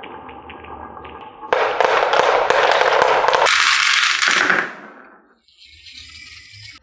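Marbles rolling and clattering along a HABA wooden marble run, a steady rattle of small clicks. About one and a half seconds in it turns into a much louder, dense clatter that lasts about two seconds, then thins out and fades, leaving a faint rattle near the end.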